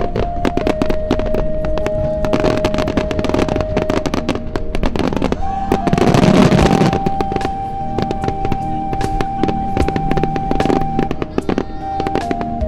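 Aerial firework shells bursting and crackling, with many sharp pops and one big dense burst about six seconds in. Music with long held notes plays under them.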